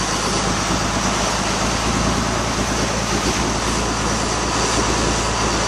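Fishing boat's engine running with a steady low drone, under a constant hiss of water rushing past the hull and wind.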